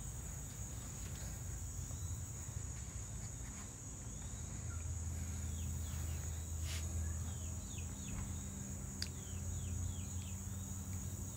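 Steady high-pitched drone of insects such as crickets or cicadas, with a low steady hum beneath it and a run of short falling chirps in the second half.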